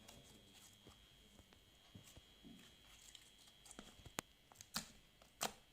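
Slime being squeezed and poked by hand, giving faint sticky pops and clicks that come sparsely at first and grow sharper and more frequent in the last second and a half.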